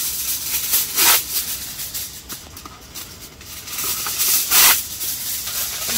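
Hissing, rustling noise that swells twice, about a second in and again around four and a half seconds.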